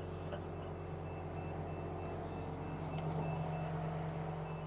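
Keestrack R3h mobile screen's engine running steadily, with a high-pitched warning beeper sounding about twice a second while the machine's hydraulics are in use.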